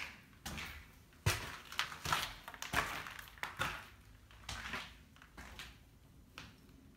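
Irregular footsteps, scuffs and knocks while someone walks through the rooms of a house, with rustling from a hand-held phone.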